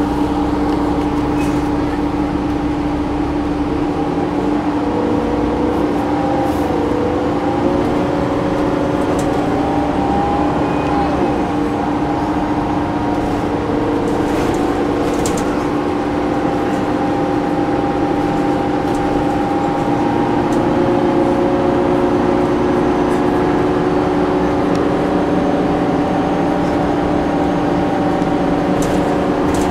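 Cabin noise inside a Gillig Advantage transit bus with a Cummins ISM diesel engine and a Voith D864.5 automatic transmission. The drivetrain runs under a steady hum, with whining tones that rise and fall as the bus speeds up and slows. There are a few short rattles.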